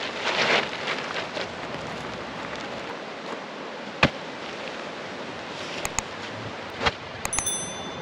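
Tent being set up: a rustle, then sharp clicks and knocks, the loudest about four seconds in and several more near the end, over a steady rushing background of river or wind.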